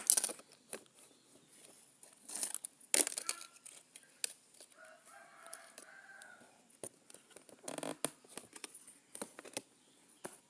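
A rooster crows once, about five seconds in. Around it are scattered clicks and short rustles of small objects and packaging being handled.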